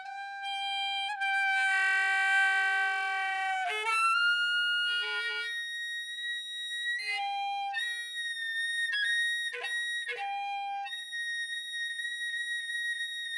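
Soprano saxophone improvising. A held note thickens into a dense, many-toned multiphonic for about two seconds. After a few broken fragments comes a long, very high, thin tone, with brief sputters and squeaks partway through.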